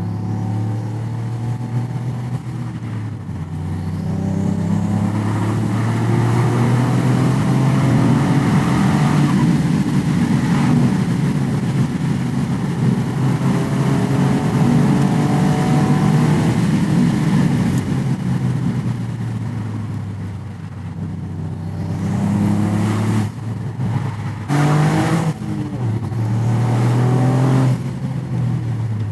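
Toyota GR Yaris turbocharged 1.6-litre three-cylinder engine, breathing through an aftermarket intake airbox, heard from inside the cabin. It accelerates hard in two long pulls with the pitch climbing, then eases off about two-thirds of the way in. Near the end come several short bursts of revving, each cut off sharply as it shifts or lifts off.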